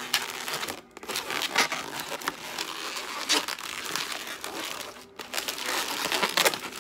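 Inflated 260 latex twisting balloons rubbing and squeaking against each other and the hands as they are twisted and bent into shape, in an irregular run of scrapes.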